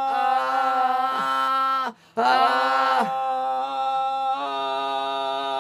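A man singing a long held vowel on one steady pitch as a vocal exercise. The note breaks off sharply about two seconds in, then picks up again at the same pitch with a slight scoop up.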